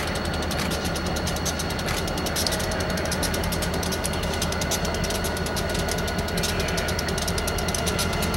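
Freight train rolling slowly past behind a pair of EMD GP35 diesel locomotives. The car wheels click rapidly and evenly over the rail joints over the steady drone of the diesels.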